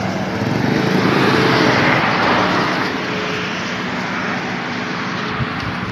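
Roadside traffic noise: a vehicle passing, swelling to its loudest about two seconds in and then fading under a steady hiss of road noise.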